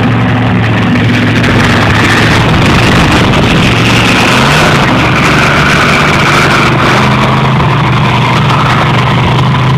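A monster truck engine running loud and steady under load, its pitch briefly rising and falling about four and a half seconds in.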